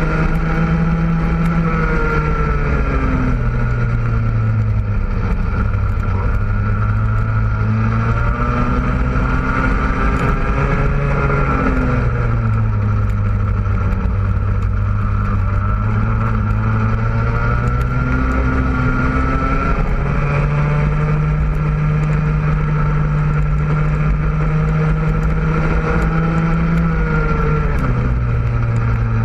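100cc two-stroke kart engine at racing speed, heard onboard. Its pitch climbs along each straight and drops away sharply when the driver lifts for a corner, several times over.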